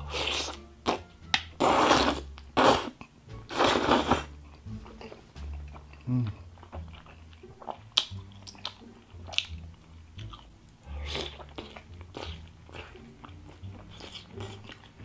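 Close-miked mukbang eating of fettuccine alfredo and seafood: three long, loud slurps of sauce-coated noodles in the first four seconds, then wet chewing with sharp mouth clicks and lip smacks.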